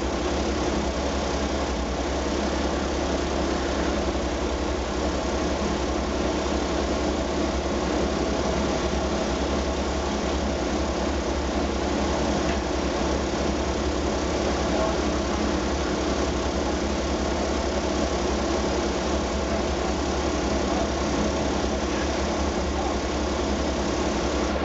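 Engine of a truck-mounted vacuum unit running at a constant speed, a steady drone with a deep hum underneath.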